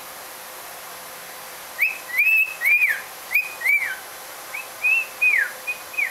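Cockatiel whistling a tune: about two seconds in, a run of short whistled notes that each rise and fall, a brief pause, then a second phrase of similar notes.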